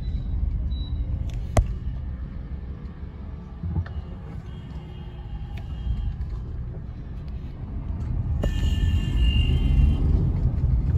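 Interior noise of a Kia Carens with a 1.5-litre naturally aspirated engine driving at low speed: a steady low engine and tyre rumble. There is a sharp click about a second and a half in. A brief high-pitched tone sounds for a second or two about eight seconds in, as the rumble grows louder.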